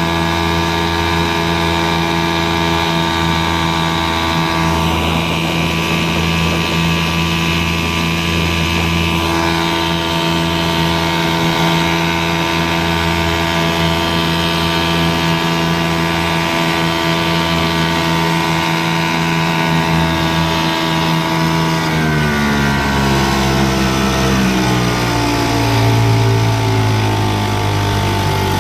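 1960s Eska Golden Jet 5 HP two-stroke outboard motor, running on a rebuilt carburettor, drives the boat at a steady high speed. About three-quarters of the way through it slows, its pitch dropping in steps to a lower, steady running speed.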